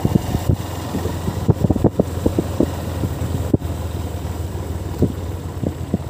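Ride in a moving vehicle over a rough dirt track: a steady low rumble with wind buffeting the microphone and frequent irregular knocks and jolts from bumps.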